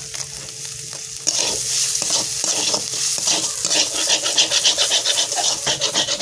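Metal spatula stirring and scraping dry-fried crumbled fish around a metal kadai. The quick, repeated scraping strokes start about a second in and keep going.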